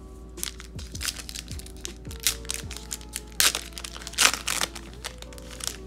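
Foil wrapper of a hockey card pack crinkling and tearing as it is pulled open by hand, in a run of sharp crackles that are loudest about three and a half and four and a quarter seconds in.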